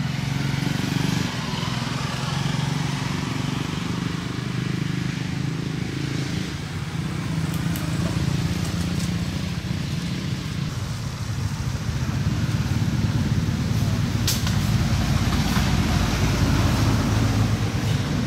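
A steady low engine hum, with a few sharp clicks about seven and fourteen seconds in.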